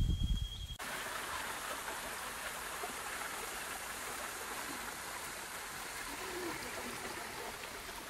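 Shallow mountain stream rushing over flat rock, a steady hiss of flowing water. It comes in abruptly less than a second in, after a brief gusty rumble with a thin steady high tone.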